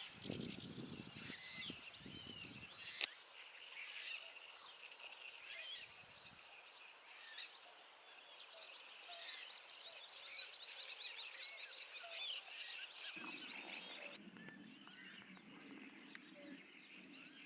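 Many wild songbirds chirping and warbling over each other around a reedy lake. A low rumble runs under them for the first few seconds, a single sharp click comes about three seconds in, and a steady low hum joins near the end.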